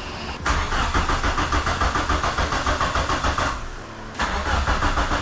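Starter cranking a 2G Mitsubishi Eclipse GSX engine in two bursts with an even, rhythmic pulse; the engine turns over but does not fire. This is because the FuelTech ECU is not reading a crank signal from the newly fitted 12-1 trigger wheel.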